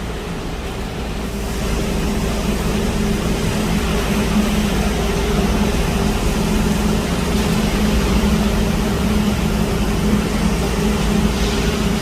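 Concrete pump truck's diesel engine running steadily under load as it pumps concrete, a loud, even drone that grows louder about two seconds in.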